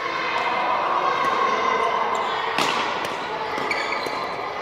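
Badminton rally in a large hall: a racket strikes the shuttlecock with one sharp crack about halfway through, with smaller hits and brief squeaks over the steady din of the hall.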